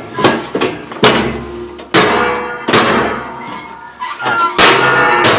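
About five loud bangs and thunks, each ringing briefly afterward, as a package is forced against a stuck mail drop slot that won't let it go down.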